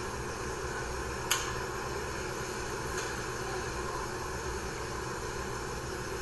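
Steady background hum and hiss, with one sharp click a little over a second in and a fainter click about three seconds in.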